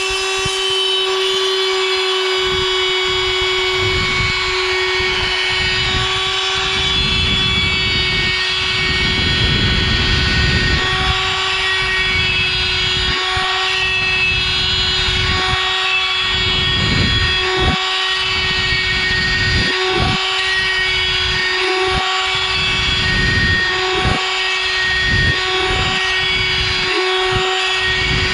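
Vonroc oscillating multi-tool running with a scraper blade, scraping silicone off a wooden board: a steady high hum, with uneven scraping noise that rises and falls as the blade is pushed into the silicone.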